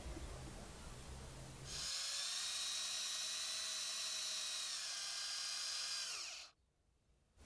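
Small handheld rotary tool running at high speed with a piece of EVA foam mounted on its shaft, shaping the foam. It gives a steady high whine that starts about two seconds in, dips in pitch, and stops abruptly about six and a half seconds in.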